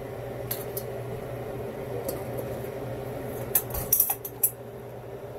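A big pot of seafood boil bubbling on the stovetop over a steady hum, with a few sharp clicks and clinks about three and a half to four and a half seconds in.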